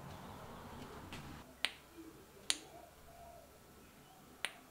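Four short, sharp clicks at uneven intervals from a handheld LED torch being handled and twisted in the hands.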